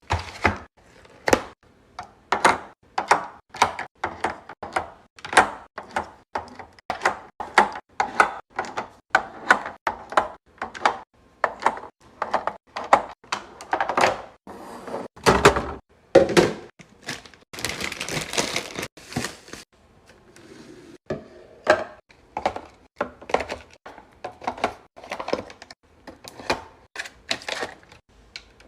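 Items being handled and set into a mini fridge: a steady run of light clacks and taps, about two a second. There is a heavier thud about fifteen seconds in, followed by a couple of seconds of rustling.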